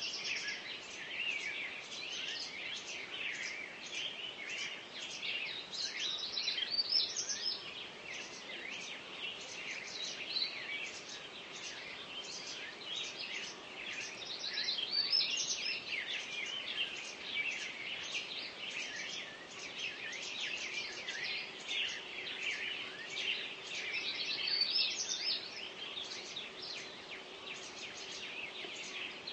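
A dense chorus of small songbirds: many overlapping chirps and trills without pause, several birds singing at once.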